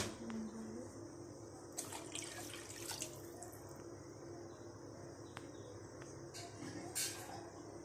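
Water and chicken masala in a steel pot heating on the stove toward the boil for biryani: a faint steady bubbling hiss with a few soft ticks and pops, one right at the start and one about seven seconds in.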